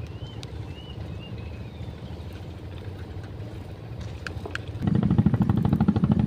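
An engine running with a steady rhythmic chug that suddenly becomes much louder about five seconds in.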